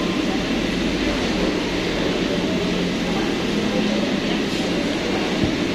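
Steady restaurant background noise: an even, constant rumble and hum.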